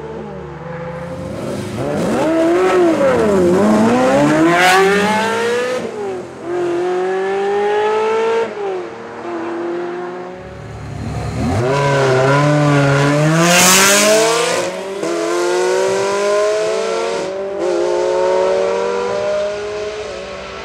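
Ferrari V8s and an Aston Martin V12 accelerating hard past, engines revving up through the gears with short breaks at each gear change and pitch falling as the cars go by. Two loud groups pass, one about two seconds in and another about eleven seconds in.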